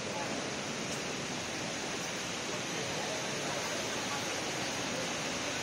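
Steady rushing noise of water, even and unbroken.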